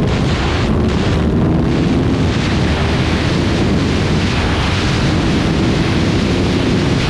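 Heavy wind rush on the microphone of an Aprilia 1100 V4 motorcycle at speed, the engine's note faint beneath it and showing a little more in the first couple of seconds.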